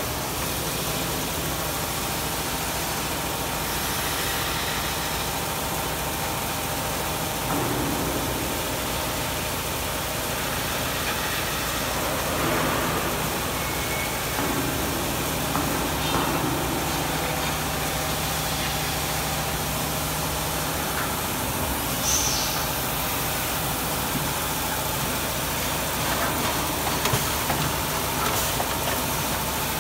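CNC vertical milling machine cutting steel: a steady spindle hum and cutting noise with coolant spray, broken by a few brief sharper noises.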